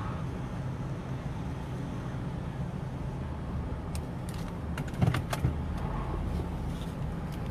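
Steady low rumble of vehicle engines in traffic, with a quick run of sharp clicks and a knock about four to five seconds in.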